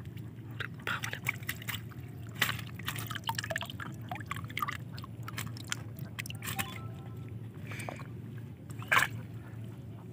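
Water dripping and splashing as a wet mesh scoop net is lifted from and dipped back into shallow weedy pond water, with a louder splash near the end.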